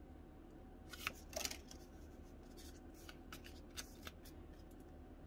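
Faint rustling and light clicks of a Pokémon booster pack's foil wrapper and trading cards being handled, with a few louder crinkles about a second in.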